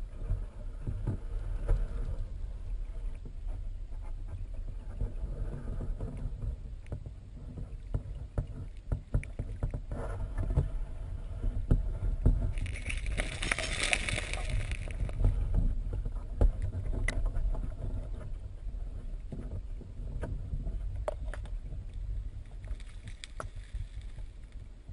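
River current heard through an underwater camera: a steady low rumble with many scattered sharp clicks and knocks, and a brief hissing rush about halfway through.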